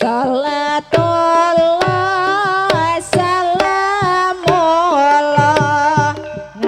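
Javanese gamelan music: a singer holds a long, wavering sung line over steady hand-drum strokes and struck-metal notes.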